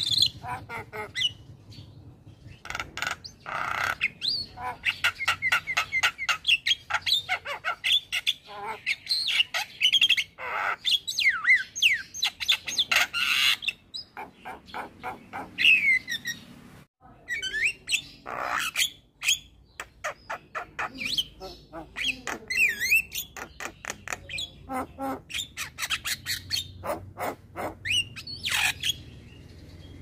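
Male Javan myna singing: fast chattering runs of clicks and harsh squawks mixed with whistled notes that slide up and down, with a short break about halfway through.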